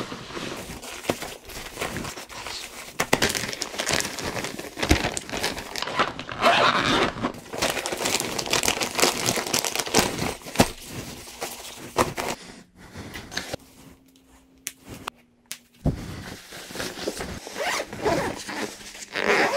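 Ski clothing and plastic bags rustling and crinkling as they are folded and stuffed into a duffel bag, with a zipper pulled. The handling goes quiet for a few seconds about two-thirds of the way through.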